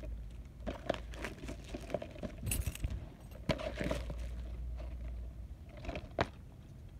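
A key scraping and picking at the wrapping and security sticker on a DVD case: irregular scratching and crinkling with small sharp clicks, a few louder ones along the way.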